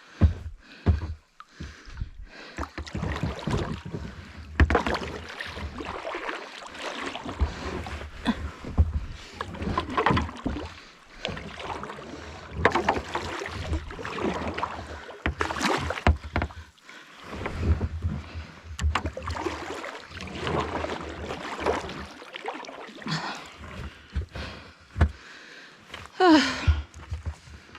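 Sea kayak in use: irregular water splashes with knocks and bumps against the hull. Near the end there is a brief sound that falls sharply in pitch.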